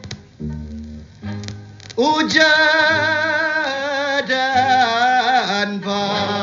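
A Cape Malay song played from a vinyl LP. For the first two seconds there are quiet, separate low plucked notes, then about two seconds in a voice comes in singing loudly with a wide, wavering vibrato over the accompaniment.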